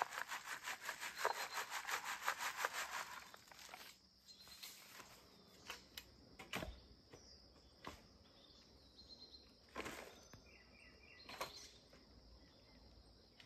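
Soil being sifted through a wooden-framed hand sieve: a rapid, even rasping as the frame is shaken back and forth and the earth scrapes over the mesh. It stops about four seconds in, leaving a few scattered scrapes and knocks.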